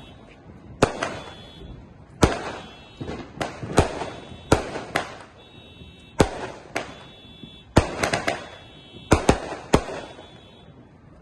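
Fireworks going off around the neighbourhood: many sharp bangs at irregular intervals, sometimes several in quick succession, each trailing off in an echo.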